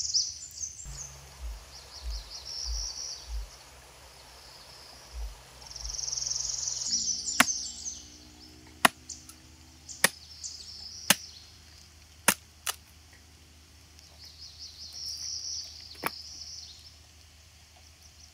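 A machete blade chopping into a wooden stick held upright: about seven sharp cracks, spaced a second or so apart, through the second half. High chirping goes on in the background.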